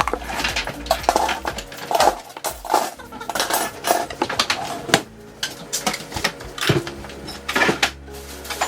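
Jars, bottles and food containers clinking and knocking, picked up and set down one after another as a refrigerator is emptied.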